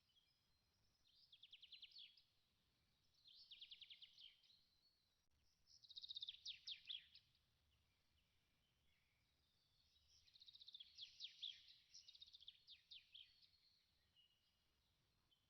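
Faint bird song: short trilled phrases of rapid high notes, each a second or so long, repeating with pauses of one to three seconds between them.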